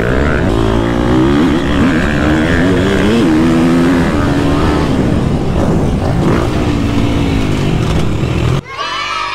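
Motocross bike engine heard from the rider's onboard camera, revving up and falling back again and again as the rider accelerates and shifts around the track. Near the end the engine noise drops away abruptly and a thinner, cleaner tonal sound takes over.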